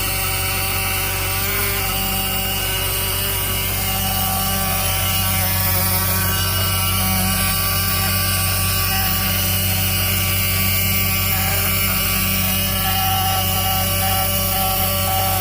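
School bus back-door alarm buzzer buzzing continuously, a harsh steady tone with many overtones. It is the rear-door alarm that keeps sounding with the bus on, which the owners suspect of draining the battery.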